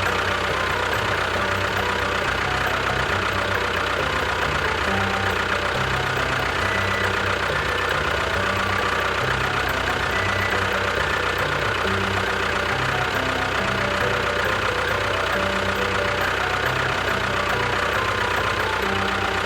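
An engine running steadily without a break, with short low tones shifting underneath.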